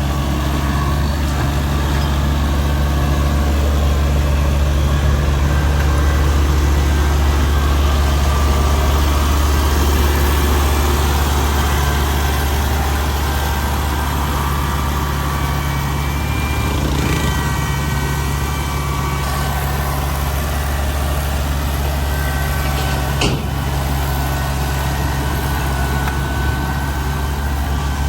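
Rice combine harvester's diesel engine running steadily with a deep, even hum; a faint high whine comes in over it in the second half.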